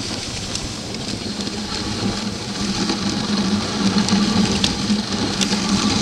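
Dog sled moving over snow behind a husky team: a steady hiss of the runners sliding on snow, with scattered light clicks and a steady low hum, growing a little louder after about two seconds.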